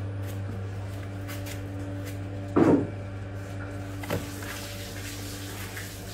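A red plastic stool knocking as a baby monkey climbs onto it: one loud dull knock about two and a half seconds in and a lighter one about a second and a half later, over a steady low hum.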